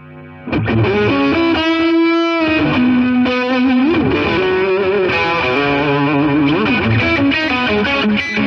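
Intro music led by a distorted electric guitar, with held and bending notes. It fades in quietly and comes in at full loudness about half a second in.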